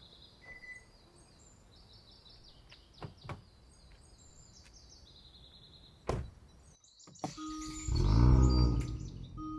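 Kia Stinger's twin-turbo V6 cranking and firing about eight seconds in, with a brief rev flare as it starts, over repeating warning-chime beeps. Before it, birds chirp faintly, with two clicks about three seconds in and a thump about six seconds in.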